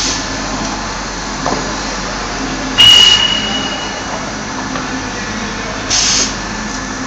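Folder gluer for corrugated cartons running with a steady mechanical hum from its belts and rollers as carton blanks feed through. About three seconds in, a sudden loud burst with a high steady tone fades out over about a second, and a short hiss comes near the end.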